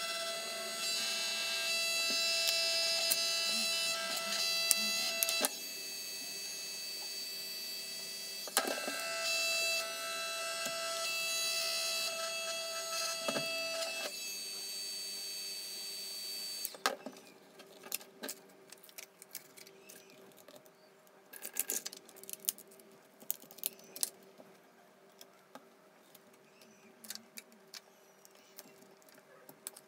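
Steady held tones for the first half, then scattered small clicks and taps of tools and small parts being handled while a laptop is taken apart.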